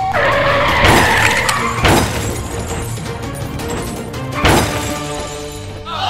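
Background music with car skid and crash sound effects: a tyre screech at the start, then sharp crashes about one and two seconds in and another near four and a half seconds.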